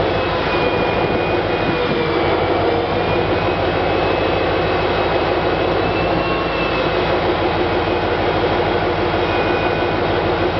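Diesel locomotive running steadily close by as it slowly pushes a train along at walking pace, with a faint high wheel squeal that wavers and comes and goes.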